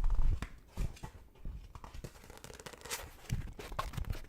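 A paper book being handled: pages rustling and flicking in scattered soft strokes, with a dull thud right at the start.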